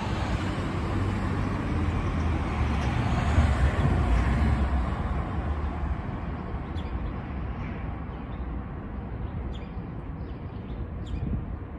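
A motor vehicle passing on the street: a low rumble that swells to its loudest about four seconds in, then fades away. A few short, faint high chirps come in the second half.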